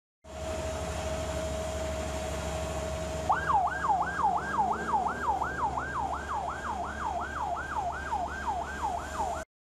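Electronic emergency-vehicle siren, holding one steady tone for about three seconds and then switching to a fast yelp that rises and falls about three times a second, over a low engine rumble. The sound cuts off abruptly just before the end.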